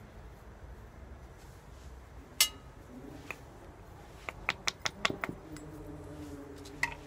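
Sharp clicks and light taps of a ferrocerium rod and its striker being handled: one loud click about two and a half seconds in, a quick run of clicks about four to five and a half seconds in, and one more near the end. A faint steady low tone sounds in the second half.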